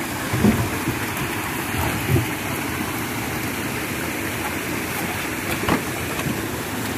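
Steady rushing noise, with a few dull knocks as a net bag of live shrimp hung from a bamboo pole is set down on plastic crates.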